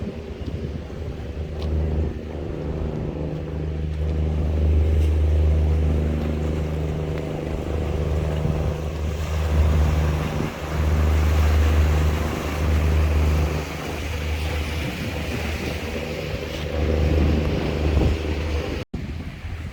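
A small boat's engine running with a steady low drone that swells and eases by turns, over faint wind and water.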